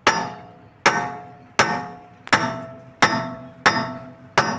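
Hammer blows on metal, seven strikes about one every 0.7 seconds, each ringing out with a clear metallic tone before dying away.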